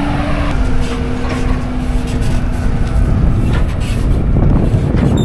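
Case IH Magnum 380CVT tractor's six-cylinder diesel engine running steadily as it pulls the anhydrous ammonia applicator and nurse tank forward. Its hum drops slightly in pitch about half a second in, over a heavy low rumble.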